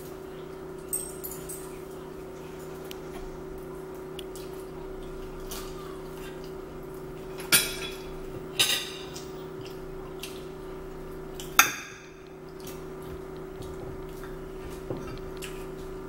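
Cutlery and plates clinking and knocking during a meal: a handful of sharp, separate clinks, the loudest three between the middle and about three-quarters through, over a steady low hum.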